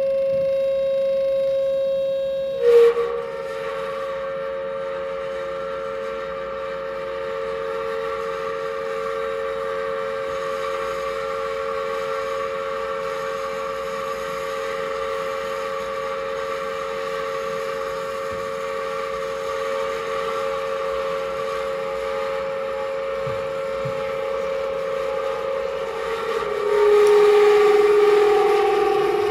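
Improvised electronic drone from a gong-and-spring sound rig run through effects pedals: several steady tones held together like a sustained chord. A sharp click about three seconds in, after which the lowest tone steps down a little. Near the end it swells louder and sinks to a lower tone.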